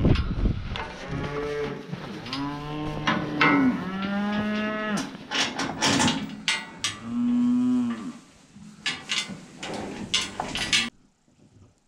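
Charolais cattle mooing, several drawn-out moos one after another, with sharp metallic clanks of steel pen gates among them in the second half. The sound cuts off abruptly near the end.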